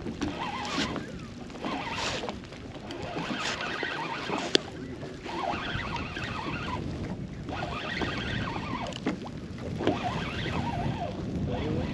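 Wind buffeting the microphone and water moving against a fishing boat, with small scattered knocks and one sharp click about four and a half seconds in.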